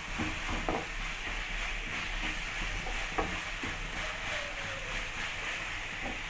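Onions and ginger-garlic paste sizzling in hot oil in a kadai, with a steady frying hiss and a few short clicks and scrapes of a spatula stirring.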